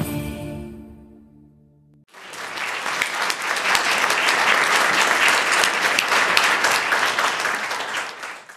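Instrumental dance music fading out, then, about two seconds in, an audience starts applauding all at once; the clapping holds steady and tapers off near the end.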